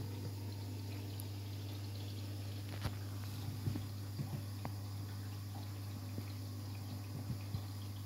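Beko WTK104121W front-loading washing machine turning its drum on the rinse, water sloshing and dripping with the laundry over a steady low motor hum, with a few faint clicks. The drum holds a high water level on a half load.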